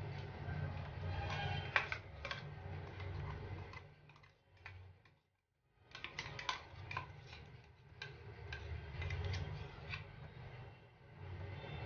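Light clicks and taps of a utensil against a bowl as mustard paste is spread over raw hilsa pieces, over a low steady hum. The sound drops out for a moment about midway.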